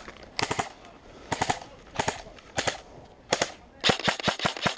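Airsoft guns firing short bursts and single shots, with a quicker run of shots near the end.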